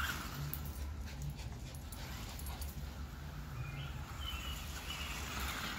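Schnauzers whimpering and whining, with a few short high whines past the middle, over a low steady rumble.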